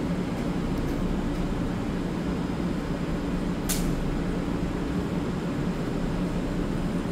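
EMU3000 electric multiple unit standing at the platform with its onboard equipment running, a steady low hum. A brief hiss comes about three and a half seconds in.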